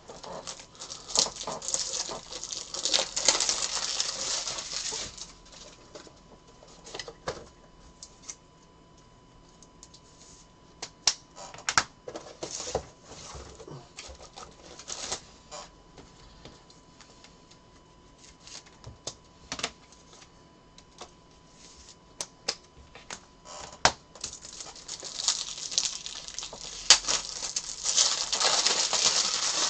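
Trading cards and plastic top loaders being handled and set down on a table: two spells of quick clicking and rustling, near the start and near the end, with single clicks and taps in between.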